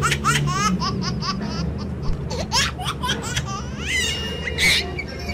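Laughter: a quick run of short rising giggles that thins out after the first second or so, with a short bright sound about four and a half seconds in.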